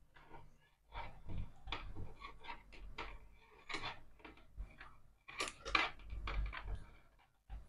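Roll of insulating tape being pulled off and wound around a wire joint: an irregular run of short crackling rips and clicks, loudest about five and a half seconds in.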